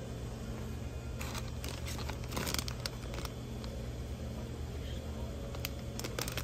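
Plastic snack bag crinkling as it is taken off a shelf and handled: a few crinkles about a second in, a louder crackle around two and a half seconds in, and more near the end, over a steady low hum.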